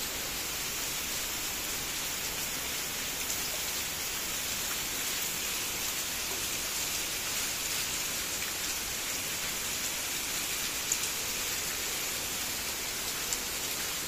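Heavy rain pouring steadily, an even unbroken hiss, with a couple of faint drop ticks near the end.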